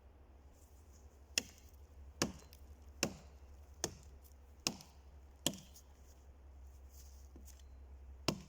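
Axe chopping into the trunk of a dry standing pine to fell it: six strikes at about one every 0.8 seconds, a pause of a few seconds, then another strike near the end.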